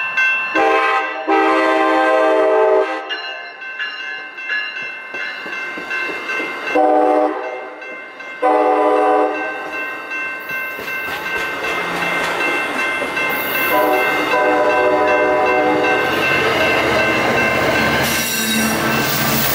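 Railroad crossing bell ringing while an approaching Amtrak passenger train sounds its horn for the grade crossing in four blasts, the first and last long, the middle two short. From about ten seconds in, the train passing over the crossing brings a steadily growing rush of wheel and rail noise.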